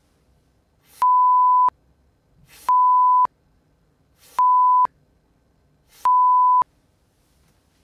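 Four loud, steady beeps of a single pitch, each about half a second long and cutting off sharply, spaced about one and a half seconds apart: an edited-in censor-style bleep tone.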